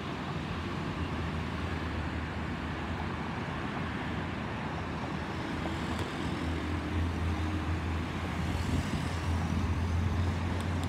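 Distant jet rumble of an Airbus A320-214's two CFM56-5B turbofans passing overhead. It is a steady low roar that grows a little louder in the second half.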